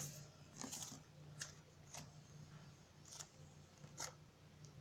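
Faint, sticky squishing and crackling of lotion-based slime being kneaded by hand, in about six short soft bursts over a low room hum.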